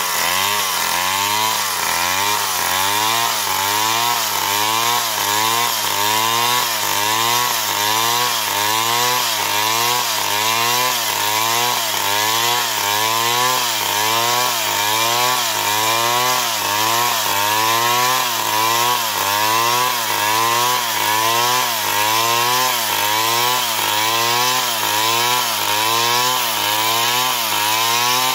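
Stihl chainsaw running at high revs, ripping lengthwise along a palm trunk. The engine's pitch rises and falls in a steady rhythm about twice a second as the bar works through the cut.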